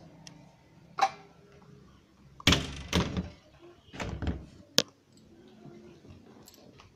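Thunks and clatter of a door being handled: a knock about a second in, a longer loud clatter around two and a half to three seconds, another shorter one near four seconds, then a sharp click just before five seconds.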